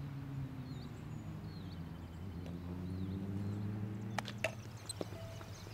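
Outdoor ambience at a softball field: a low, steady drone that slowly shifts in pitch, with faint bird chirps. About four seconds in come two sharp knocks in quick succession, the loudest sounds, around the catcher's throw.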